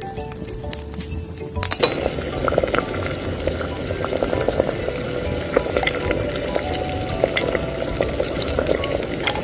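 Broth simmering in a small clay pot, a dense bubbling crackle with many small pops, and a metal spoon stirring through it near the end. A held musical tone comes before it in the first second and a half.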